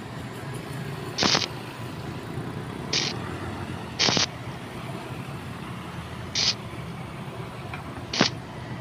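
Stick (arc) welding on the steel boom of an excavator: the arc is struck in five short crackling bursts of about a quarter second each, a second or two apart, as the crack is tack-welded. A steady low hum runs underneath.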